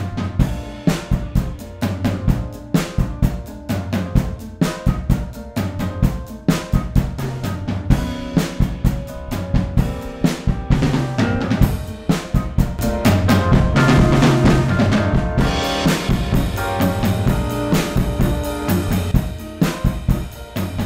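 Mono drum-bus recording of a drum kit playing a steady beat, with kick and snare hits, played back through an Audio-Scape V-Comp+ vari-mu tube compressor. The compressor's drive circuit is pushed hard, so the drums sound thick, broken up and distorted.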